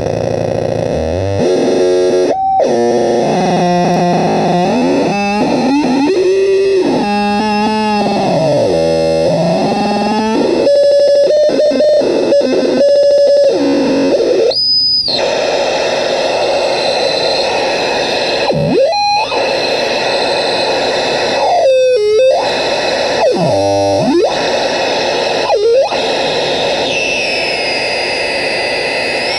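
Homemade crystal-radio noise synth being played by turning its knobs: harsh, steady electronic noise with wobbling tones that glide up and down. It has several sudden swoops and dropouts, and a high whistle slides about near the end.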